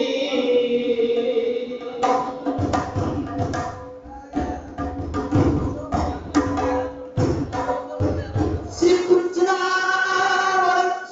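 A man sings a held line into a microphone. About two seconds in, a hand-played two-headed barrel drum breaks in with a run of quick strokes for several seconds, and the singing takes up again near the end.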